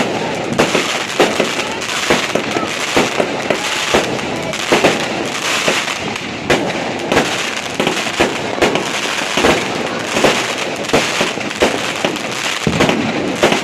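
Many fireworks and firecrackers going off at once: a continuous crackle with frequent sharp bangs, often several a second.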